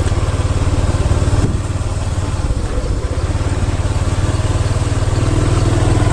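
Small motorbike engine running at low revs with a steady, fast low throb, easing slightly a second and a half in and picking up again toward the end.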